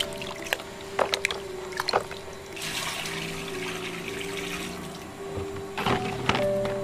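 Water splashing and sloshing as cassava chunks are rubbed clean by hand in a metal basin, with a few sharp splashes. About two and a half seconds in, the basin is tipped and its water pours out onto concrete in a steady rush lasting about two seconds.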